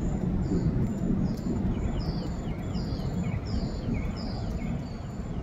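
Birds calling over a low steady rumble: a repeated series of short downward-slurred whistled notes, louder in the middle, with fainter high chirps repeating at an even pace.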